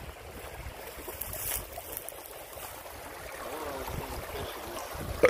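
Shallow creek water running and trickling over stones, with wind rumbling on the microphone.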